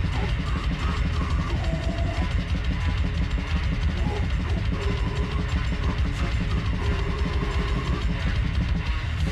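Death metal music: fast, dense drumming on a drum kit under heavy guitars, playing without a break.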